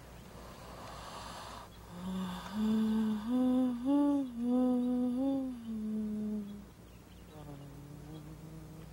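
A woman humming a slow, wordless tune with closed lips: a string of held notes that step up and down, followed near the end by a fainter, lower hum.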